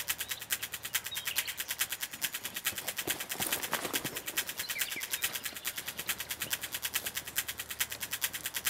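Fast, even ticking pulse, about five or six ticks a second, from a sparse soundtrack, with faint bird chirps and a few soft thuds near the middle.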